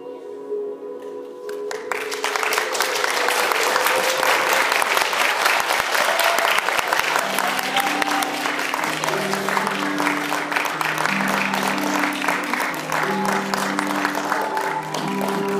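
Audience applauding, starting about a second and a half in and continuing throughout, over instrumental music with long held notes that comes in more strongly in the second half.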